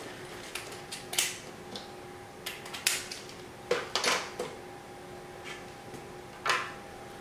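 Scattered clicks, light knocks and short rustles of small parts and tools being picked up and set down, over a faint steady hum.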